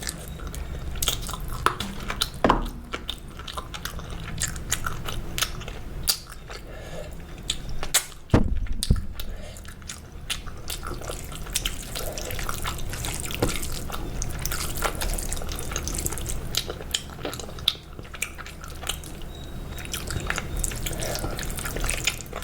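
Close-miked chewing of spicy chicken egg fried rice, with many small wet mouth clicks and smacks, over a steady low hum. A single heavier thump about eight seconds in.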